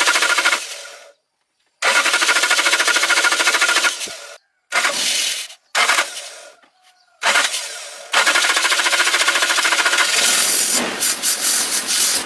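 Toyota Hiace van engine cranked over by its starter in several bursts with silent pauses between, then catching and starting to run about ten seconds in.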